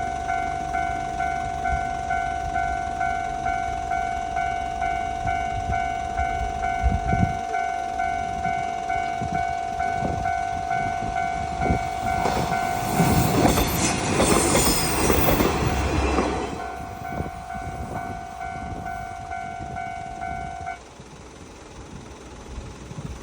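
Japanese railroad crossing alarm ringing in a steady rhythm of about two strikes a second while a limited express train passes, its running noise and wheel clacks loudest in the middle and partly covering the bell. The alarm cuts off suddenly near the end once the train has cleared.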